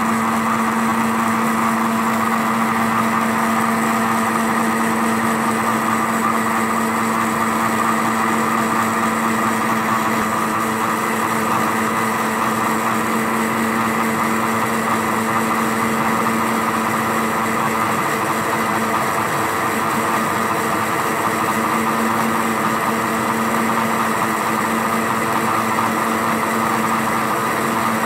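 Electric blender motor running at a steady pitch and level, puréeing pineapple pieces with pineapple juice.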